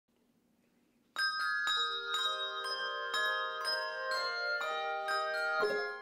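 Handbell choir ringing a melody: many handbells struck one after another with clear, long-ringing tones that overlap into chords, starting about a second in.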